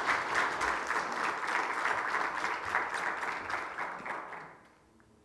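Church congregation applauding, the clapping dying away about four and a half seconds in.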